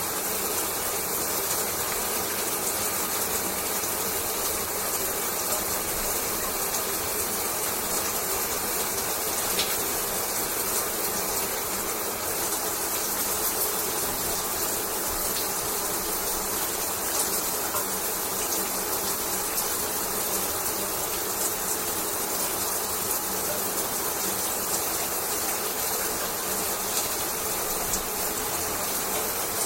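Shower water running steadily: an unbroken, even hiss of falling spray.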